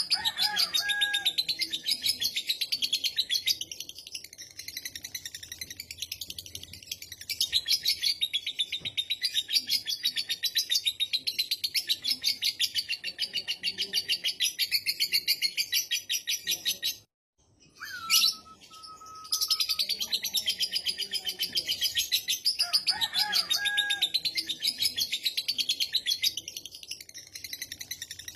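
Lovebird ngekek: a long, rapid, high-pitched chattering trill of fast repeated notes. About two-thirds of the way through it breaks off briefly, a single short whistle sounds, and then the chattering resumes.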